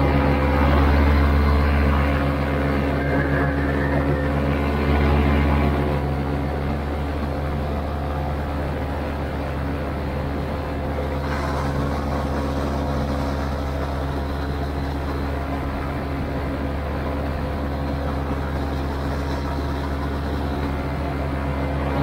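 Vittorazi Atom 80 single-cylinder two-stroke paramotor engine and propeller running steadily in flight, a constant droning hum. It is slightly louder in the first couple of seconds and again briefly about five seconds in.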